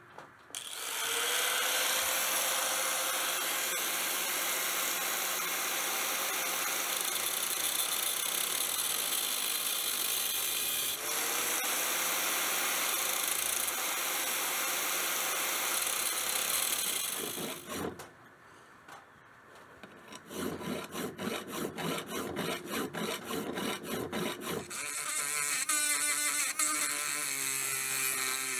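Angle grinder in a chop stand spinning up and cutting the steel leaf-spring knife blank, with a steady high whine that dips and spins up again about 11 seconds in, then stops. After a short pause, a small handheld rotary tool runs against the blade with a rapid stutter, then a steadier whine that falls in pitch as it winds down near the end.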